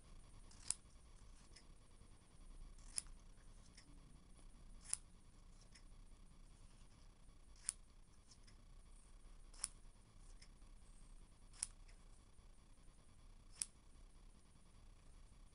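Scissors snipping across a strip of orange fabric, cutting it into squares: seven short, sharp snips about two seconds apart.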